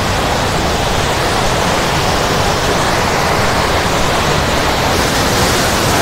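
Waterfall plunging into its pool close by: a loud, steady rush of falling water.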